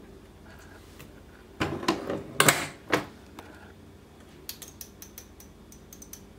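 Kitchen utensils handled at a mixing bowl: a few clattering knocks about two seconds in, then a quick run of light clicks near the end.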